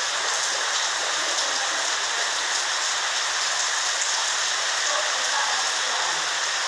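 Heavy rain pouring down in a steady hiss of drops on surfaces.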